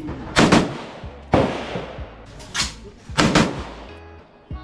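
Gunshots, about five at irregular intervals, each a sharp crack with a long echoing tail.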